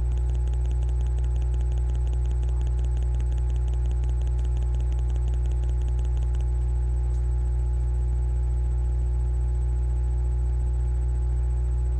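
Steady low electrical hum with a few faint steady tones above it. For the first half or so, a faint, fast, even ticking runs over it.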